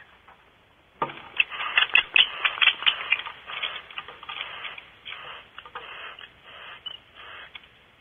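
Barn owl giving harsh, rasping screech-hisses in choppy bursts with sharp clicks. The sound starts suddenly about a second in, as the owl arrives on its perch, and fades toward the end.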